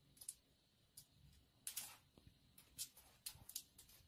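Faint, irregular scratching of a kitten's claws scrabbling on a smooth painted wall, short scrapes coming every half second or so.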